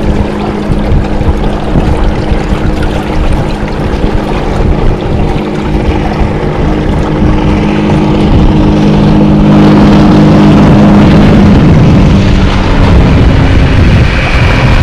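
Loud rushing noise of wind and water on open water, with a boat engine's steady hum under it that drops a little in pitch and fades out about twelve seconds in. The rushing noise grows louder from about eight seconds in.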